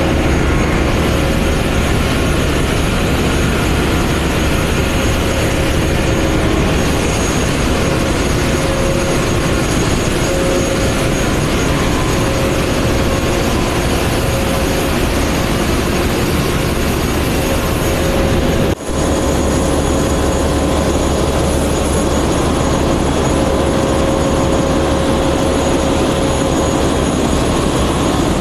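Ship's engine-room machinery running: a loud, steady din with a few constant whining tones on top. It drops out for a moment once, about two-thirds of the way through.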